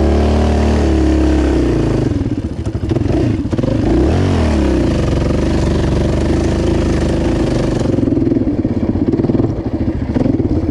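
Yamaha Raptor 700 quad's single-cylinder four-stroke engine under riding throttle, its pitch rising and falling as the throttle is worked near the start and again around four seconds in, then holding steadier before easing off near the end.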